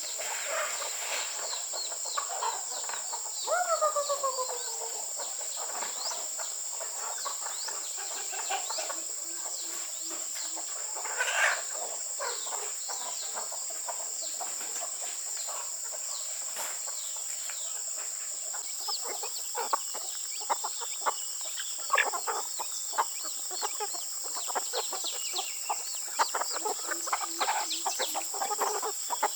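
Chickens clucking, with a steady high-pitched whine throughout and many sharp clicks or taps in the second half.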